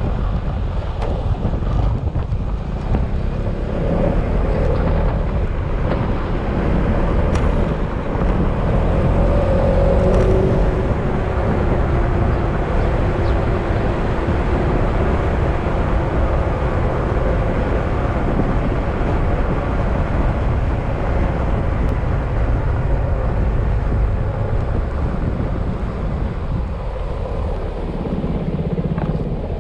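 Yamaha XMAX scooter's single-cylinder engine running on the move, under a steady rush of wind and road noise.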